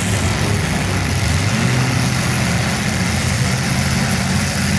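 Engines of several demolition derby cars running together as they drive around the dirt arena: a steady low engine drone whose pitch shifts as they rev.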